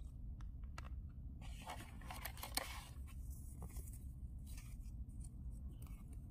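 Clear plastic phone case and paper leaflets being handled: crinkling and rustling with scattered light clicks, densest between about one and a half and three seconds in, with one sharper click near the middle.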